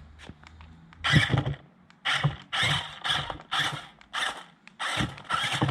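JJRC Q137 8x8 skid-steer RC's electric drive motors and gearboxes whirring in short throttle bursts, about two a second, starting about a second in, as it is nudged into position.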